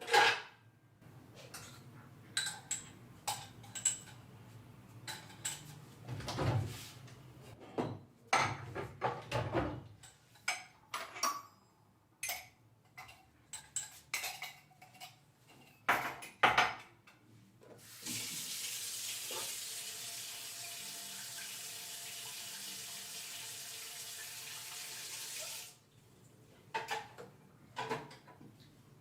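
Kitchen sounds: dishes, pots and cutlery clinking and clattering in separate knocks, then a tap running into the sink for about eight seconds before it is turned off, followed by a few more clinks.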